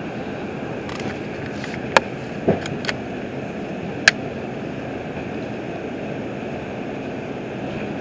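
An R142 subway car running along the track, heard from inside the car as a steady noise. A few sharp clicks and a clank come about two to three seconds in, and one more sharp click about four seconds in.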